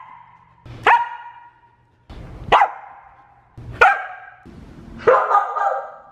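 Samoyed barking: four sharp single barks about a second and a half apart, each trailing off with a short echo, the last one longer and rougher.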